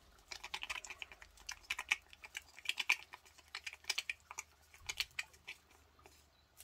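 Acrylic paint being stirred in a small pot with a stick: rapid, irregular light clicks and taps of the stick against the pot, several a second, thinning out near the end.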